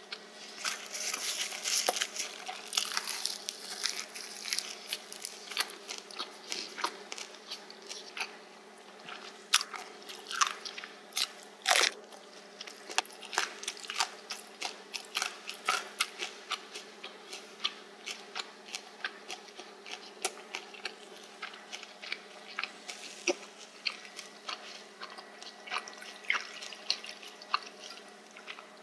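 Close-miked chewing of crunchy spicy pork cartilage (odolppyeo): crisp crunches come thick and fast for the first few seconds, then settle into a steady chewing rhythm of about two crunches a second, with one louder click about twelve seconds in.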